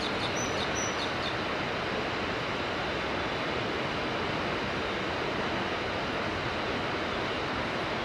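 Steady rushing of a mountain river, an even noise with no rhythm or change in level, with two short high bird chirps about half a second in.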